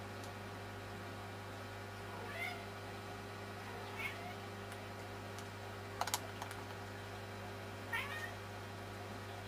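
Three short high-pitched calls that bend in pitch, each well under a second, about two, four and eight seconds in, over a steady low hum. Two quick sharp clicks about six seconds in.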